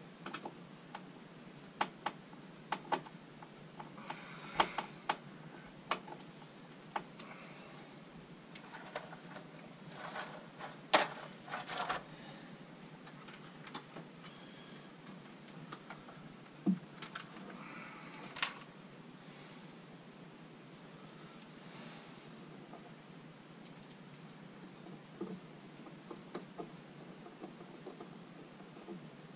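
Irregular small clicks, taps and knocks with some rustling: hands working on electrical wiring and fittings at a wall. The sharpest knocks come in a cluster about eleven seconds in.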